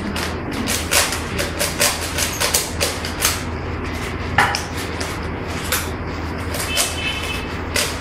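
Rapid, irregular clicking of plastic Rubik's cubes as several people twist their layers at once, over a steady low hum.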